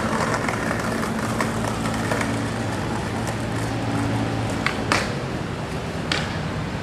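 Steady hum of distant city traffic with a low engine-like drone, and a couple of sharp clicks near the end.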